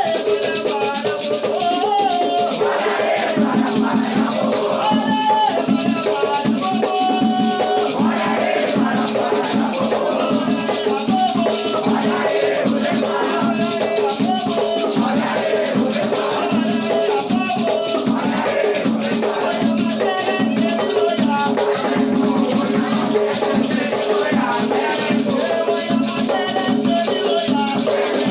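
Batuque ritual music: gourd rattles shaken in a steady rhythm, with drumming and chanted singing over them.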